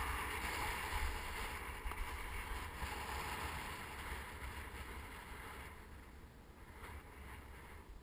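Hiss of a descent on snow, skis or board sliding over the surface, with wind rumbling on a GoPro's microphone; the sound grows quieter over the last few seconds as the descent eases.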